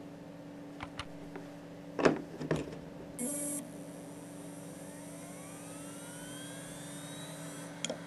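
Western Digital Raptor WD740GD 10,000 rpm hard drive spinning up: a whine rising steadily in pitch from about halfway through, then a few clicks near the end as it comes up to speed. Earlier, a few sharp clicks and a short hiss over a low steady hum.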